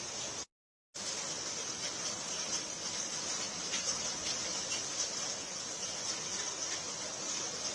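Heavy rain falling in a steady hiss, broken by a dead silence of about half a second shortly after the start.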